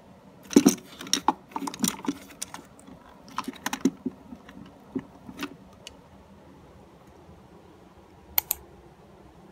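Plastic pens and markers clattering and knocking against each other in a pen cup as a hand rummages through them and pulls some out: a burst of quick clicks and knocks, a few scattered ones after, and a sharp double click near the end.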